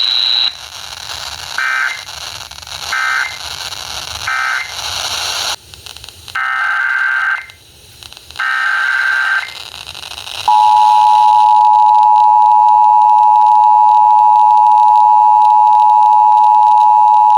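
Emergency Alert System tones. A high tone cuts off half a second in. Then comes a string of short, raspy EAS digital data bursts about a second and a bit apart, followed by two longer bursts. About halfway through, the loud, steady two-tone EAS attention signal starts and holds to the end.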